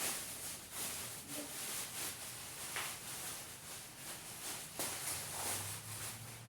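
Rustling and light scraping of packaging as parts are handled and pulled from a cardboard box, a soft uneven hiss with faint small knocks.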